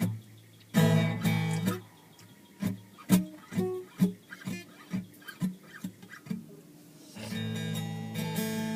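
Acoustic guitar played by hand: two quick strums about a second in, then single notes picked roughly two a second, then a chord strummed and left ringing near the end.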